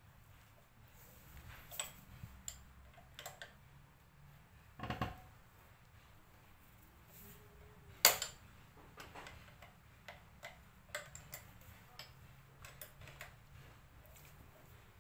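Scattered metallic clicks and taps as hand tools and front brake caliper parts are handled during a brake pad change. There is a brief clunk about five seconds in and one sharp, loud click a little past halfway, then lighter ticks.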